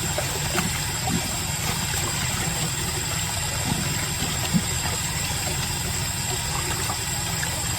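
Steady low rumble and hiss of laundry-room noise, with a few faint knocks and clicks.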